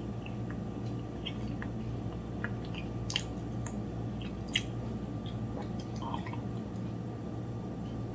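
A person sipping coffee from a mug: a few short, soft slurps and wet mouth clicks, the plainest about halfway through, over a steady low hum.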